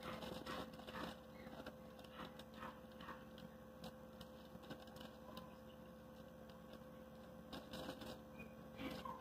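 Faint, scattered crinkles and clicks of empty plastic bottles shifting as a puppy climbs about among them, over a steady electrical hum.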